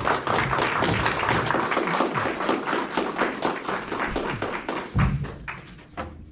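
Audience applauding: a dense patter of many hands clapping that thins out near the end, with a low thud about five seconds in.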